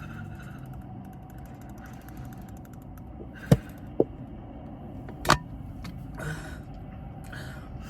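A few sharp clicks and creaks over a steady low hum. The loudest come about three and a half and just over five seconds in, with a smaller click at four seconds and softer rustles near the end.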